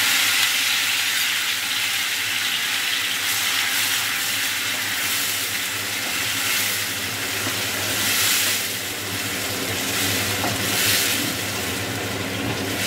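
Onion paste frying in hot ghee and oil with whole spices, a steady sizzle with small swells.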